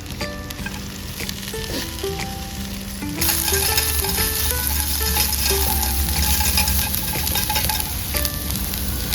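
Food sizzling and frying in a pan over a campfire, the sizzle starting suddenly about three seconds in and staying loud. A light melody of background music plays throughout.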